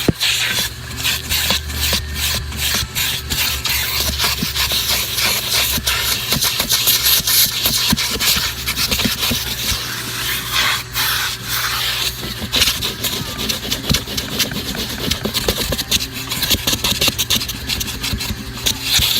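Rapid scraping and rubbing strokes on car carpet during vacuuming, over a steady motor hum.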